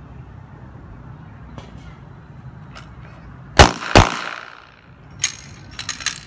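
Two one-handed shots from a Glock 17 Gen 4 9mm pistol, about half a second apart, each loud and echoing. A few lighter sharp clicks follow near the end.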